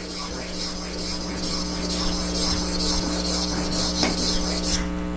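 Steel plane blade in a honing jig being rubbed back and forth on a wet water stone: a steady scraping hiss that stops abruptly shortly before the end. A low electrical hum runs underneath.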